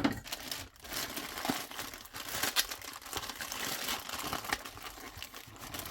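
Shipping package being cut open with a knife and its wrapping torn and crinkled as it is pulled away: a dense, irregular crackle with a sharp snap at the start.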